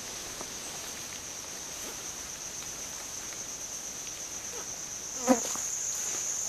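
A steady high-pitched drone of insects in the forest, growing a little louder about five seconds in, with faint rustles of footsteps through the undergrowth. One brief loud sound cuts in about five seconds in.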